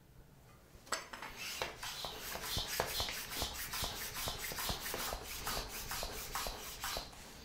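Hand bicycle pump worked in quick strokes, scraping and hissing several times a second, inflating a fat bike's inner tube through a Presta valve adapter.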